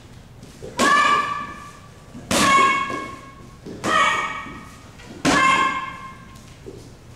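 Kicks slapping red hand-held taekwondo target paddles four times, about a second and a half apart, each a sharp crack. Each strike comes with a short, high shout from the boy kicking.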